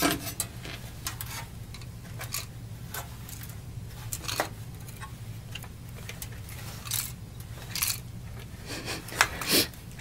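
Loose broken plastic pieces rattling inside an opened Sony PlayStation 1 as the unit is tilted and shaken, heard as irregular light clicks with a few louder clatters. The pieces sit in the console's controller connectors.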